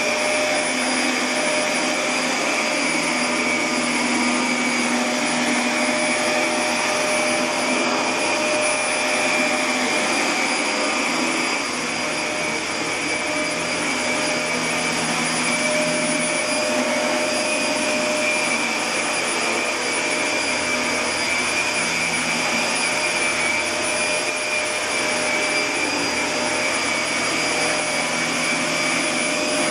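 Steady machine noise: an even rushing whir with a constant high whine, unbroken and at an unchanging level.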